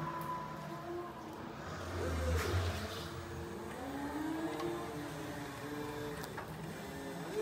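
Electric drive of a Still FM-X14 reach truck whining as it drives and manoeuvres, its pitch rising and falling as it speeds up and slows. A short low rumble with a sharp knock comes about two seconds in.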